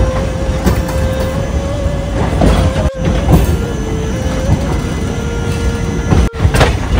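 Indian express passenger train running, heard from inside the coach: a loud rumble with a steady whine and a few sharp clacks.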